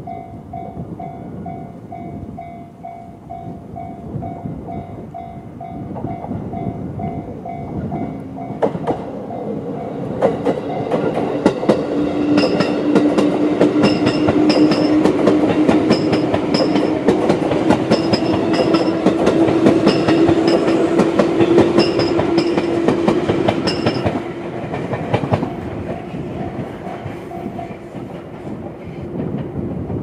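A level crossing's electronic alarm (the JR standard tone) rings in a steady repeating pattern. About nine seconds in, a JR 211 series electric train runs over the crossing, its wheels clacking rhythmically over the rail joints for about fifteen seconds. The alarm goes on ringing faintly after the train has passed and stops near the end.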